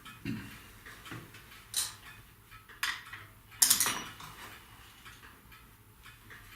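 Small metal tools or parts clinking and clattering as they are handled: a few separate knocks, the loudest a short clatter a little past halfway.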